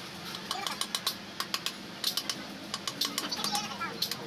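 Quick, irregular metallic clicks and clinks of small steel parts being handled and fitted onto a truck power steering gearbox housing.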